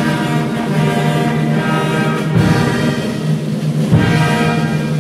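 Orchestral music, loud and continuous.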